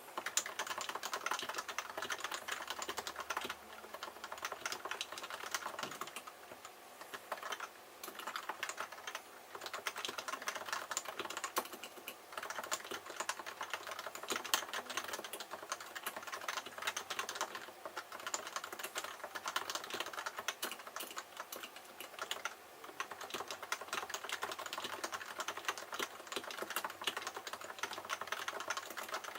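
Typing on a Leopold FC660C keyboard with 45 g Topre electrostatic capacitive switches, unprinted PBT keycaps and unlubricated sliders: a fast, continuous run of keystrokes with a few short pauses.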